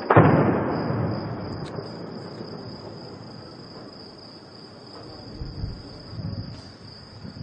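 A single loud bang of heavy gunfire right at the start, its echo rolling away over about two seconds, over a steady chirping of crickets; a few faint low thumps follow later on.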